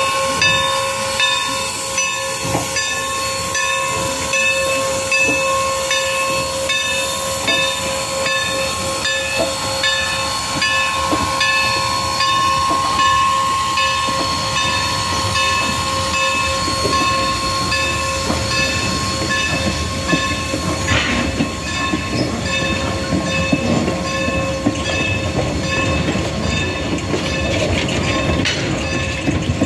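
Strasburg Rail Road No. 475, a 4-8-0 steam locomotive, pulling out of a station with rhythmic steam exhaust and hiss, over a steady whine. In the second half its wooden passenger coaches roll past, and the wheels rumble and clatter over the rail joints.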